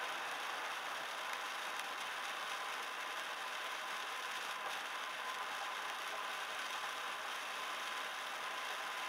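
Steady road and tyre noise inside a car cruising at highway speed on a wet road, recorded by the dashcam's microphone, with a faint steady high tone.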